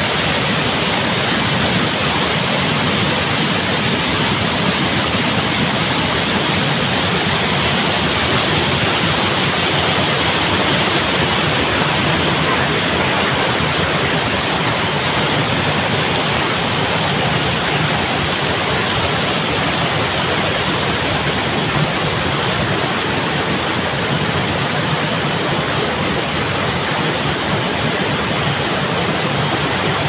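Steady rush of a waterfall and a rocky stream cascading over boulders, with no break or change.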